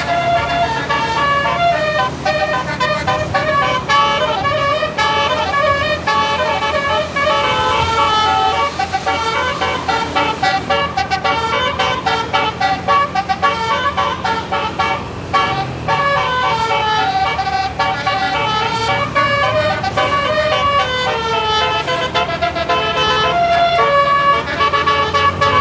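Indonesian tour bus's basuri 'telolet' multi-tone air horn playing a tune in quick stepping notes, with the bus's engine running underneath.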